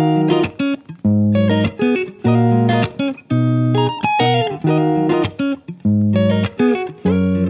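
Background music led by plucked guitar: short picked notes and chords in a steady rhythm, with brief gaps between phrases.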